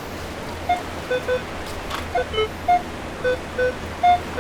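Minelab metal detector sounding its target tones: about nine short beeps at two or three different pitches, coming irregularly as the coil sweeps back and forth over a buried target. The detector reads a target ID around 20. Under it runs a steady low rumble of surf and wind.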